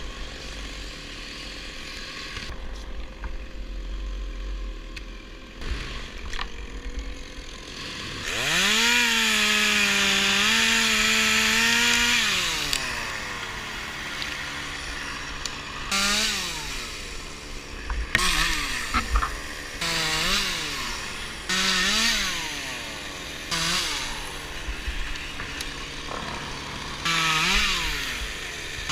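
Chainsaw engine: after a low rumble, it revs up to full speed about eight seconds in and holds for about four seconds, then is blipped up in short revs several times, the pitch dropping back after each.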